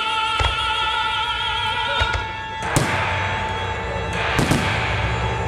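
Music for a pyromusical display, an operatic voice singing with vibrato that gives way to a fuller, denser passage a little past two seconds in. Firework shells burst over it with sharp booms: one about half a second in, another near two seconds, one just before three seconds, and a close pair about four and a half seconds in.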